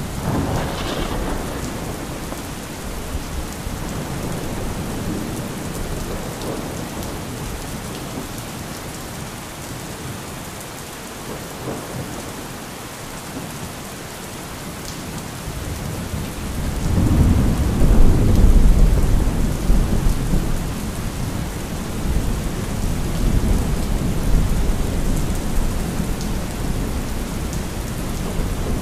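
Thunderstorm: steady rain with rolling thunder. A rumble fades away over the first few seconds, then a louder, deep roll of thunder builds about seventeen seconds in and slowly dies down.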